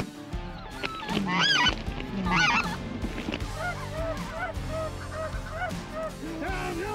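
Geese calling: two loud rising-and-falling calls in the first few seconds, then a quick run of short honks, over steady background music.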